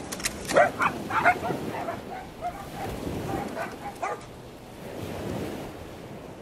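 Small long-haired dachshunds yipping and barking, a quick run of short high barks that stops about four seconds in, with surf and wind behind.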